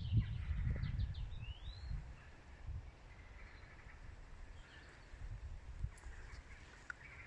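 Birds calling and chirping, including a short rising call about a second and a half in, over a low rumble of wind on the microphone that is strongest in the first two seconds.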